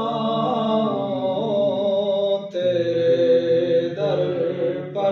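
A naat being sung: the singer holds drawn-out, wordless melodic notes, with a short break and a fresh phrase about halfway through.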